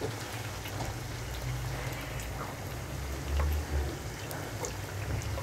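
Yeast doughnuts deep-frying in oil in a skillet: a steady fizzing crackle of small bubbles and spatters, with a brief low rumble a little over three seconds in.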